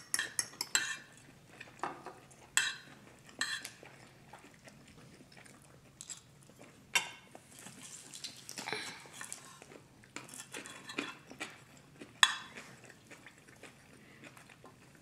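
Spoons and forks clinking and scraping against ceramic bowls during a meal: a few sharp, irregular clinks spread over the seconds.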